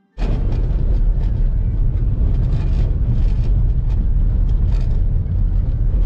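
Car driving on a rough dirt road, heard from inside the cabin: a steady engine and road rumble with scattered clicks and rattles from the uneven surface. It starts just after a split-second silent gap.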